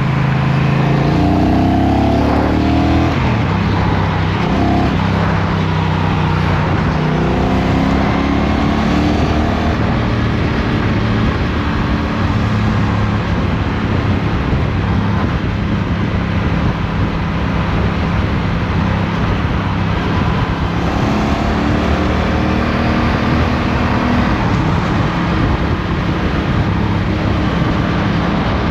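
Motorcycle engine running at highway speed, heard from on board with steady wind and road noise; the engine pitch climbs and steps through gear changes in the first few seconds and again about two-thirds of the way through.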